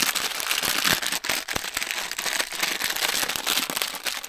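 A packet of instant noodles squeezed and kneaded in the hands: the plastic wrapper crinkles and crackles continuously with many small sharp clicks.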